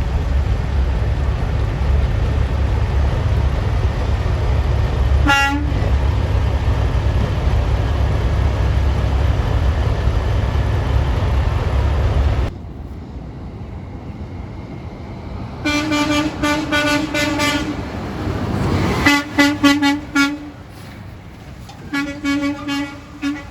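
A big truck's engine rumbling loudly, with one short horn toot about five seconds in. The rumble drops away about halfway through, and the truck's horn then sounds in several bursts of quick, stuttering honks.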